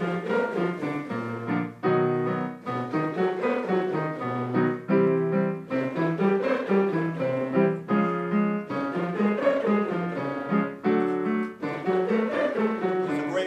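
Choir singing lip trills, lips buzzing on a pattern that slides up and down, with a piano striking a chord about every three seconds to set each new starting pitch.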